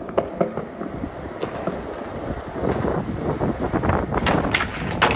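Skateboard wheels rolling over concrete, a steady rumble that grows louder, with a few sharp clicks along the way. Wind buffets the microphone.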